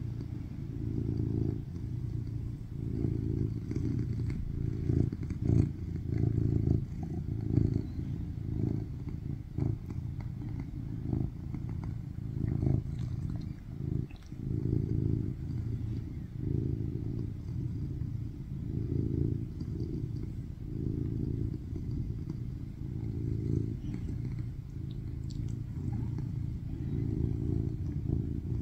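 Tuxedo cat purring loudly and continuously, the rumble swelling and easing in regular waves about once a second, with a few faint clicks.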